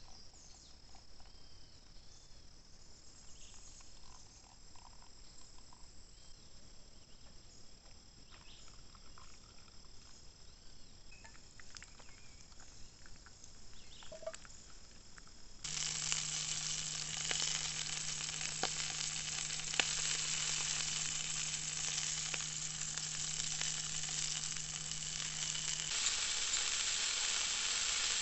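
Crickets chirring faintly and steadily, then, after an abrupt cut about fifteen seconds in, food sizzling loudly as it fries, with a low steady hum under it for about ten seconds.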